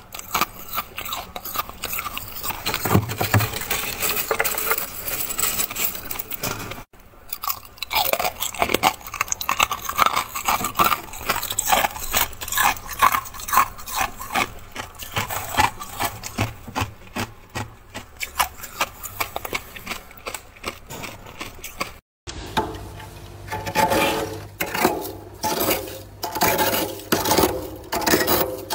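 Thick freezer frost being scraped and crunched in quick, irregular strokes, a dense granular crackling, broken twice by a brief silent gap.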